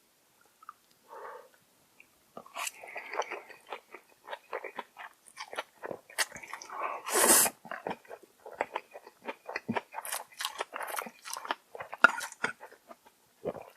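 Close-up mouth sounds of a person eating noodles and side dishes: irregular wet smacks, chewing and crunches. They start about two seconds in, and one longer, louder burst comes about seven seconds in.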